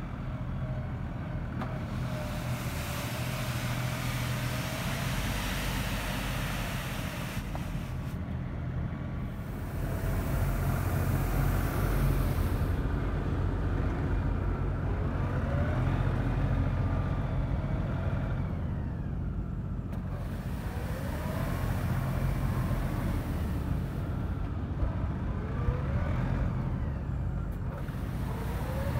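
LS XR3135 compact tractor's diesel engine running steadily, with the hiss of its front-loader brush broom sweeping grit off the pavement. The hiss swells and fades in stretches, and a few short rising whines come through.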